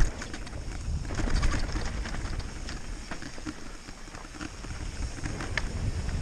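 Enduro mountain bike riding fast down a dirt singletrack: a steady rumble of tyres and wind on the microphone, with many small clicks and rattles from the bike over bumps and a sharp knock right at the start.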